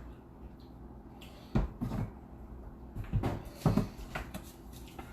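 A few dull knocks and clunks in two short clusters, the sound of kitchen items being handled and set down on a counter.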